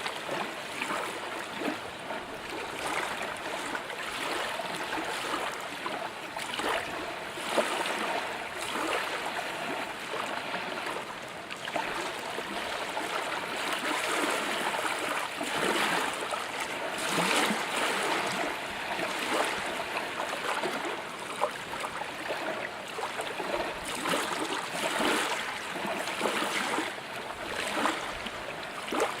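Water lapping against a boat's hull, a steady run of small irregular slaps and gurgles that swell and ebb, with one sharper slap about seven and a half seconds in.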